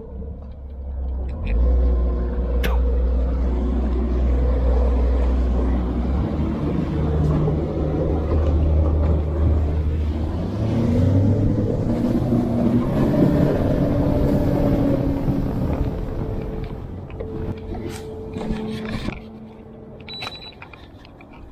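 Boat's outboard motor running under way, with a heavy low rumble of engine and wind. About ten seconds in the engine note climbs as it speeds up, then the sound drops back lower for the last few seconds.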